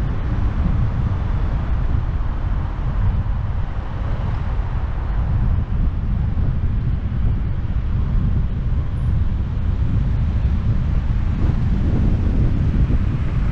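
Steady low rumble of wind buffeting the microphone over the tyre and road noise of a car driving along a city street.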